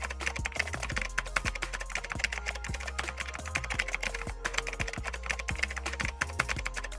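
Background music with a steady bass and held tones, overlaid by a dense, rapid clicking.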